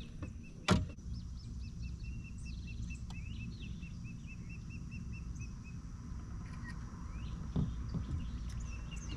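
A songbird calling in a long run of evenly repeated chirps, about three a second, with other bird chirps over a steady low rumble. A sharp knock about a second in.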